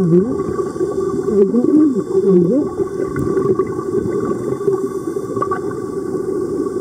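Underwater sound picked up by the camera in the sea: a steady low rumble and hum with a few faint steady tones. Wavering, sliding sounds come in during the first two and a half seconds, then stop.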